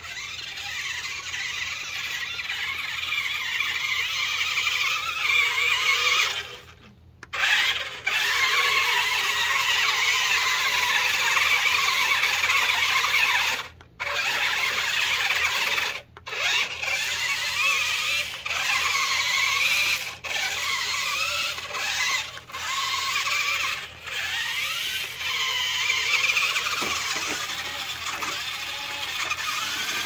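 Ruko amphibious remote-control truck's electric drive motors and gears whining as it drives through snow, the pitch wavering with speed. The whine cuts out briefly several times and starts again.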